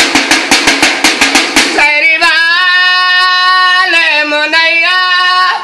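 A hand-held drum beaten with a stick in a fast, even beat, about five strikes a second, stopping about two seconds in. A man then sings a long, drawn-out call, the kind a sehri waker sings to rouse people for the pre-dawn Ramadan meal.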